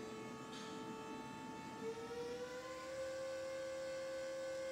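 Electric hydraulic pump motor of a Raymond swing reach truck whining steadily as the forks lift, its pitch stepping up slightly about two seconds in.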